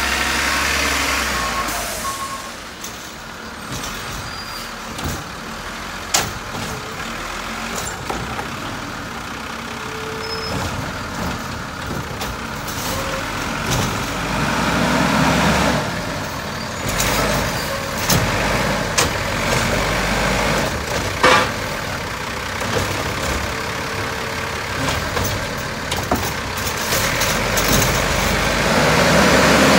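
Diesel garbage truck at work: the engine runs throughout, swelling louder about halfway through and again at the end, with several sharp metallic knocks and clanks and a few beeps near the start.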